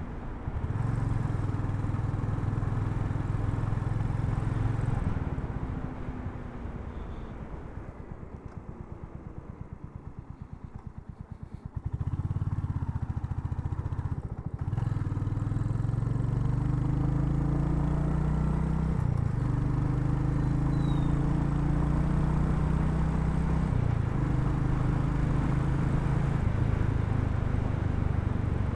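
Royal Enfield Hunter 350's single-cylinder engine being ridden. It runs loud for the first few seconds, then drops to a low, fast-pulsing putter at low revs for several seconds. About twelve seconds in it pulls away again, its pitch stepping up several times as it goes up through the gears.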